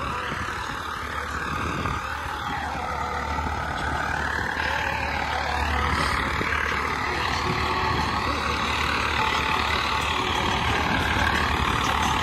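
Swaraj 855 tractor's three-cylinder diesel engine running steadily under load as it pulls a tined cultivator through dry soil, growing slowly louder.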